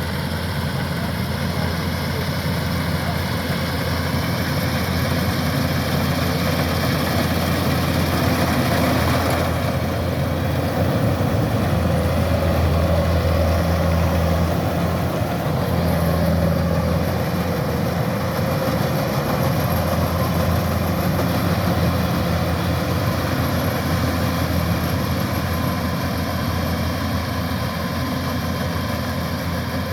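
Kubota rice combine harvester's diesel engine running steadily, a low mechanical drone that swells somewhat in the middle.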